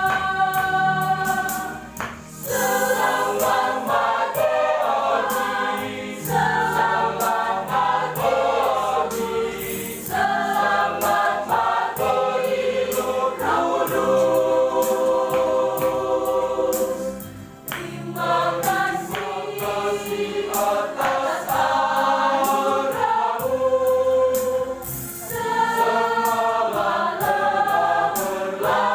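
Church choir singing a hymn in several voice parts, holding chords with short breaks between phrases about two seconds in and again past the middle.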